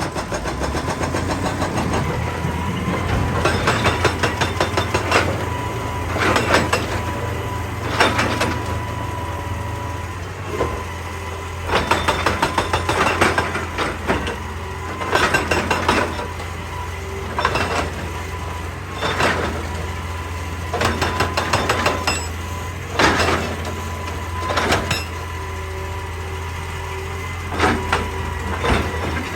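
Excavator diesel engine running steadily, with repeated short bursts of rapid clattering and knocking as rock is worked, about every one to two seconds.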